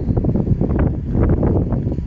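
Wind buffeting the phone's microphone: a loud, uneven rumbling rush with no steady tone.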